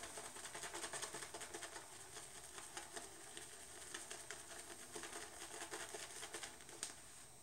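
A fairly wet boar-bristle shaving brush working Wilkinson Sword shave soap into lather, a faint, rapid crackly patter of bristles and wet lather.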